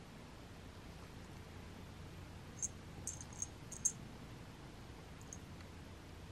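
Quiet room with a cluster of about six faint clicks a little before the middle: a cat's teeth on the stick of a wand toy as it chews it and rubs its face on it.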